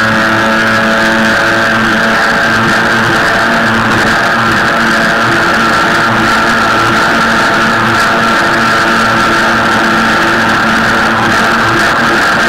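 Jet ski engine and jet pump running at a steady cruising speed after revving up: a constant droning hum with several held tones, over a steady hiss of water and wind.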